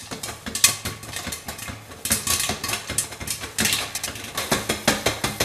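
Popcorn kernels popping in hot oil inside a lidded pot, many sharp pops in quick, irregular succession, with the pot shaken back and forth on a glass-top electric stove. The popping is near its end, just before it slows to a few seconds between pops.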